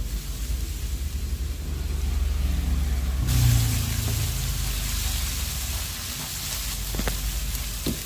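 Ground garlic, shallot and chili paste sautéing in a wok, with a slotted spatula stirring and scraping it. A steady sizzling hiss comes in about three seconds in, and the spatula knocks against the pan twice near the end.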